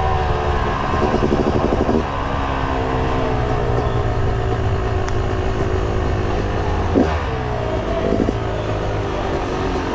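Dirt bike engine running at light throttle, heard close up, with a few short revs; its pitch eases down as the bike slows.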